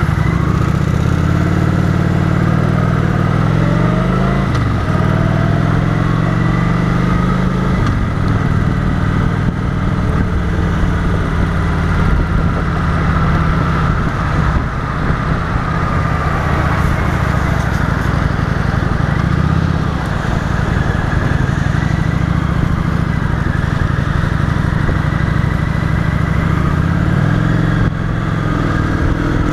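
Motorcycle engine pulling away and accelerating, rising in pitch through two upshifts in the first several seconds, then running at a steady cruise with constant wind and road noise.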